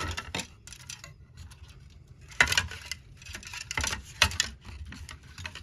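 Small plastic model-kit parts clicking and tapping as they are handled and pressed into place on the build: a handful of separate sharp clicks, the loudest about two and a half seconds in.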